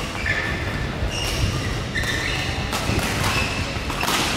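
Court shoes squeaking on a synthetic badminton court mat in a large hall, several short squeaks at a steady pitch, with a sharp smack a little after four seconds. A low hall rumble runs underneath.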